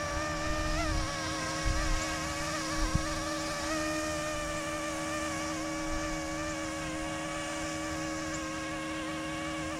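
YXZNRC F09-S electric RC helicopter's motor and rotors making a steady buzzing whine, its pitch wavering slightly. Gusts of wind hit the microphone in the first three seconds.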